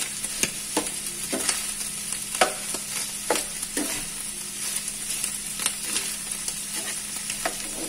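Chopped boiled chicken gizzards frying in hot oil in a frying pan: a steady sizzle, with irregular clicks and scrapes of a spatula stirring them against the pan.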